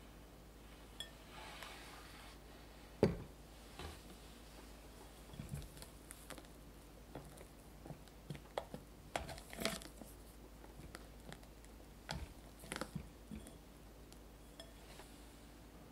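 A silicone spatula scooping and scraping stiff meringue in a glass bowl, with scattered light knocks and clinks of utensils against the glass; one sharper knock about three seconds in.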